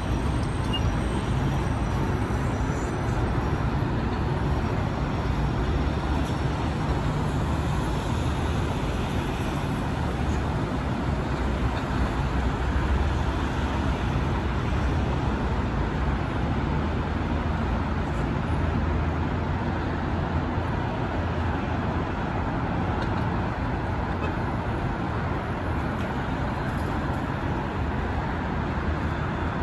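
Steady low vehicle rumble: a constant drone with a deep hum underneath, and no distinct events.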